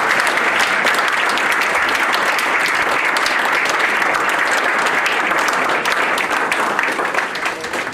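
Banquet audience applauding steadily, a dense patter of many hands clapping, tapering off near the end. It is applause for an award winner just named.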